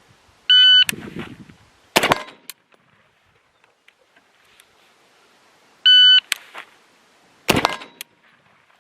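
Electronic shot timer giving its start beep, followed about a second and a half later by a single gunshot. The pattern happens twice: a second beep about six seconds in, then another shot.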